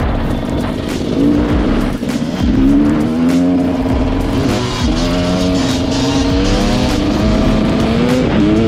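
Dirt bike engine being ridden hard, revving up and dropping back again and again as the rider accelerates and shifts, with rough rushing noise underneath.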